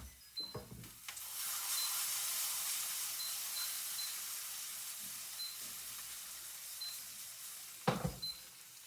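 Food sizzling in a hot pan: the sizzle starts suddenly about a second in, as something goes into the pan, then slowly dies down.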